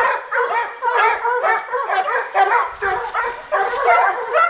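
A pack of hunting dogs baying continuously, several voices overlapping: hounds in cry on a wild boar during a flush from its bed.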